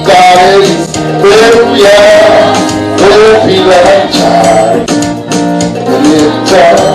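Gospel worship song: voices singing over sustained instrument chords and a steady percussion beat.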